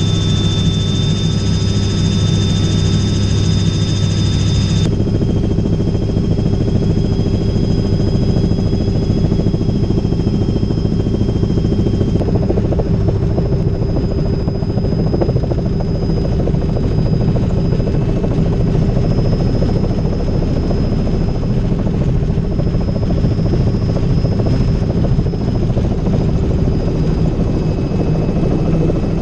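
Robinson R66 helicopter in flight heard from inside the cabin: a loud, steady mix of rotor and turbine noise with a thin high whine on top. The sound changes abruptly about five seconds in and again around twelve seconds.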